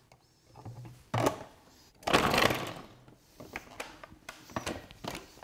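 Sage Kitchen Wizz Pro food processor running briefly as a whole potato is pushed down the wide feed chute through the large chipper disc, cutting it into chips: one short, loud rush of cutting noise about two seconds in, lasting under a second. Light clicks and knocks follow.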